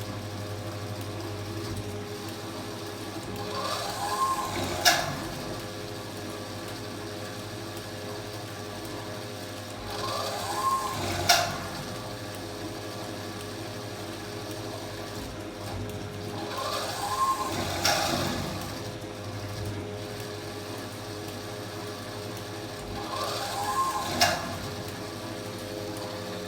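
Washing machine drum motor tumbling the wash over a steady hum. About every six and a half seconds the motor's whir rises and falls in pitch and ends in a sharp click, four times in all.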